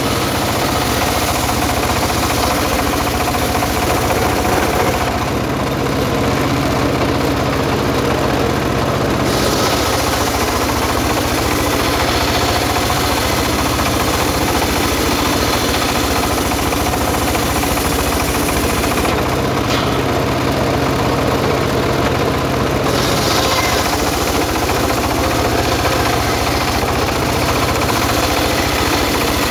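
Homemade engine-driven circular sawmill running steadily while its large blade rips lengthwise through a timber beam. The high hiss thins out twice, for a few seconds each time.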